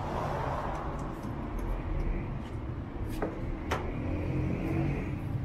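City street ambience: a steady low hum of traffic, with two sharp clicks about half a second apart a little past the middle.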